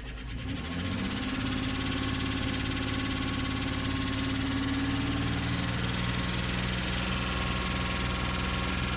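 Chevy Equinox 3.4-litre V6 running during warm-up after a cold start. About half a second in it gets louder and holds a steady hum, then settles slightly lower about five and a half seconds in. The owner reports a knock on cold start that clears up once the engine is warm.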